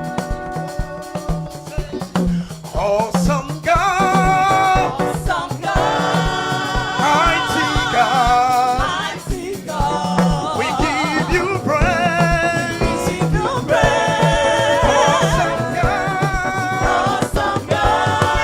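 Gospel choir singing with band accompaniment over a steady beat; the voices come in about two and a half seconds in, after a short instrumental opening.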